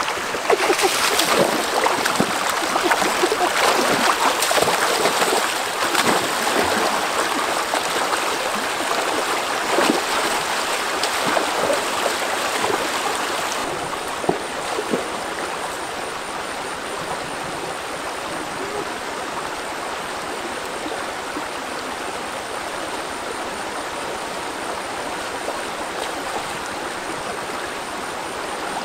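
Shallow stream running over rocks: a steady rush of flowing water, louder and more uneven for about the first half, then an even, slightly softer flow.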